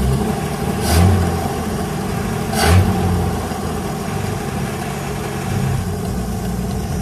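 Carbureted car engine idling steadily without stalling, with two short throttle blips, about a second in and near three seconds. It runs well but still needs tuning.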